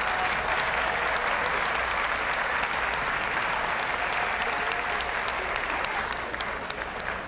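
Large arena audience applauding steadily: many hands clapping together in a dense, continuous patter that holds at an even level throughout.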